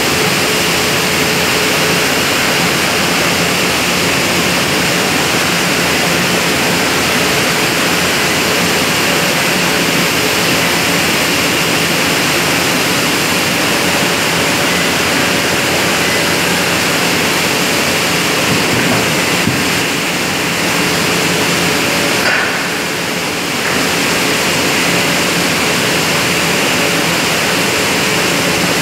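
Loud, steady industrial background noise: an even rushing hiss with a faint steady tone under it, dipping briefly about three-quarters of the way through.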